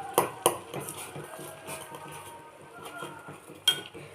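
A spoon clinking irregularly against a pot while stirring a boiling kadha to dissolve the jaggery.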